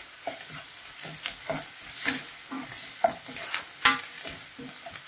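A spatula stirring and scraping onions and garlic frying in oil in a stainless-steel pan, with a light sizzle underneath. The scraping comes in repeated short strokes, a few a second, with one sharper scrape near four seconds in.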